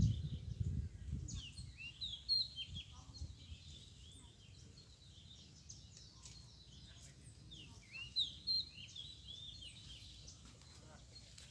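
Small birds chirping in two bursts of short, high calls, the first about two seconds in and the second around eight seconds. A low rumble, loudest in the first second, lies under the chirping.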